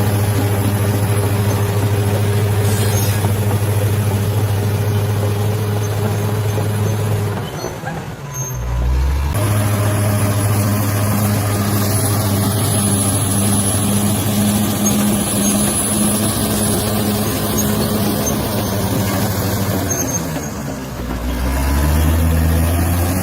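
Bulldozer's diesel engine running steadily under load, its note changing and dipping briefly twice, about a third of the way through and near the end, as the engine eases off and picks up again.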